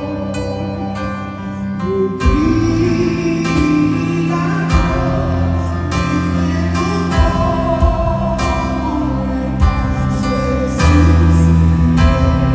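Gospel song performed live: singing over instrumental accompaniment, with a deeper, fuller low end coming in about two seconds in.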